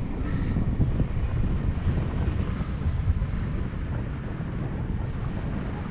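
Wind from a paraglider's flight rushing over the camera's microphone: a steady, low buffeting.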